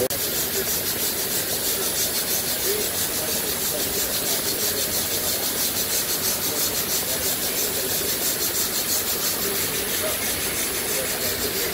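Stuart No. 1 model vertical steam engine running under light pressure, its exhaust hissing in a quick, even rhythm.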